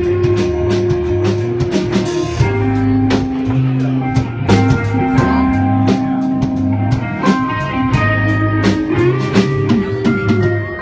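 Rock band playing live: guitar lines over a bass line and a drum kit keeping a steady beat, an instrumental passage with no singing.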